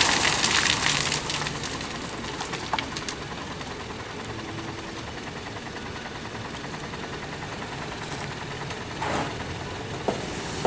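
Dump truck tipping a load of fill sand and stones: the rush of material sliding out of the raised bed fades over the first couple of seconds. After that the truck's diesel engine keeps running steadily, with a few sharp clicks of stones falling.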